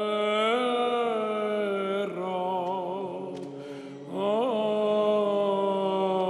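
Greek Orthodox Byzantine chant: a single voice sings slowly in long held notes with wavering ornaments. A new phrase begins with an upward swoop about four seconds in.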